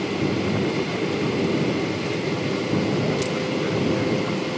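Steady jet-engine and airflow noise inside an airliner cabin, with a faint steady hum under it.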